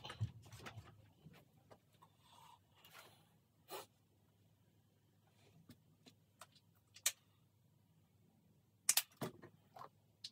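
Scattered light clicks and knocks of objects being handled, with a sharper click about seven seconds in and a close pair of louder knocks about nine seconds in.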